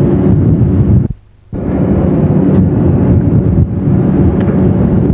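Loud, steady low rumble of a fishing trawler's engines and deck machinery, with wind noise on the microphone; it cuts out for about half a second about a second in.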